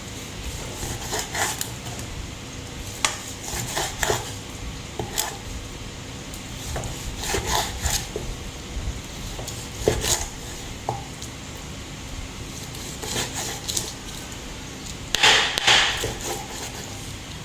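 Kitchen utensils and dishes clinking and knocking at irregular intervals, with a louder clatter near the end.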